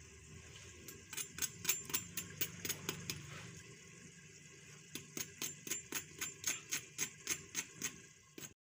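A fork working into the crisp breadcrumb coating of a fried chicken nugget, making a run of sharp crunches at about four a second. It stops about halfway through and then starts again.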